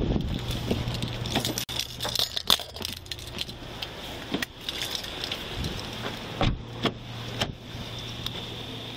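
Keys and metal gear jangling with scattered clicks and knocks as a handcuffed man is put into the back seat of a patrol car, over a steady low hum. A heavier thump about six and a half seconds in, as the car door is shut.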